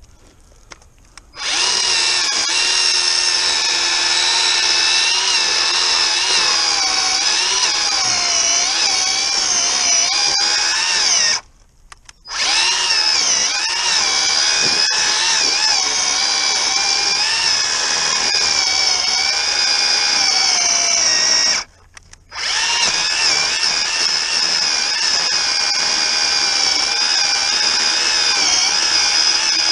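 Worx WG322 20V cordless electric chainsaw with a 10-inch bar cutting into a thick log: a steady, loud whine of motor and chain that starts about a second in, breaks off briefly twice, and starts again each time.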